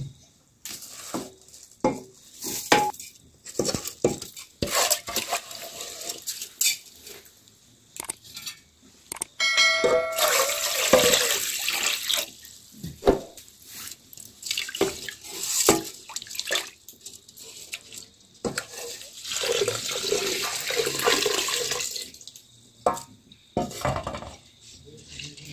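Raw rice being washed in an aluminium pressure cooker. Metal pots and a jug knock and clink throughout, water is poured over the rice about ten seconds in, and a hand swishes and splashes the rice in the water for a couple of seconds before the end.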